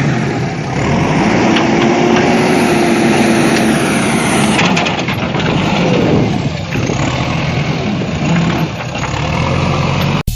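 Toy tractors running: a steady engine-like noise with a whine that rises and falls, and scattered clicks. It cuts off suddenly near the end.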